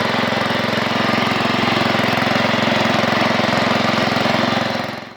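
Sears Suburban garden tractor engine running steadily with a fast, even beat while plowing the garden, cutting off abruptly near the end.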